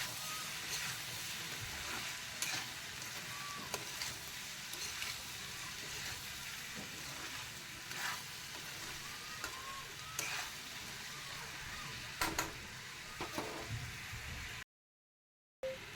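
Chicken frying and sizzling in a pan, with a steady hiss and a utensil clicking against the pan every second or so as it is stirred. The sound cuts out completely for about a second near the end.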